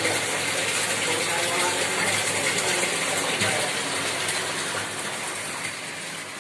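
Water from a submersible well pump pouring out of two pipes and splashing into a concrete tank: a steady rushing splash that grows quieter near the end.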